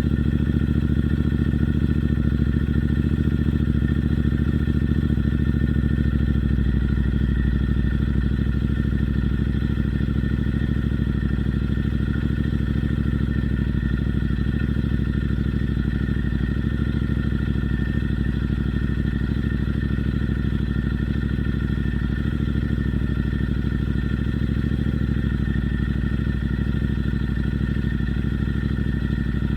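Royal Enfield Interceptor 650's 648 cc parallel-twin engine, fitted with Red Rooster Performance aftermarket exhausts, idling steadily with no revs.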